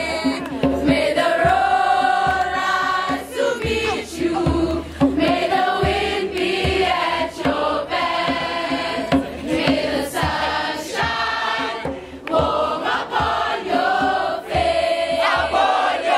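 A group of teenage students singing together in a chant-like song, with long held notes that step up and down.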